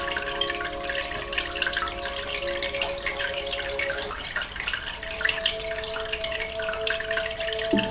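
Aquarium water bubbling steadily with air bubbles, under soft ambient music of long held notes that change to a new chord about halfway through.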